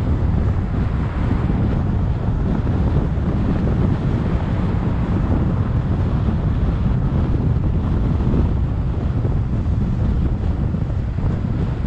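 Steady low rumble of wind buffeting the microphone and road noise from a car driving at town speed.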